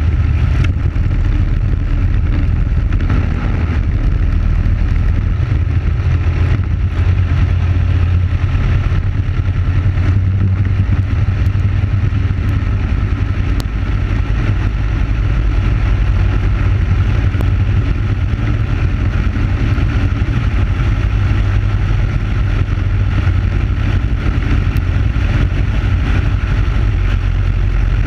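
Briggs & Stratton Animal single-cylinder four-stroke kart engine running steadily at racing speed, heard onboard the kart.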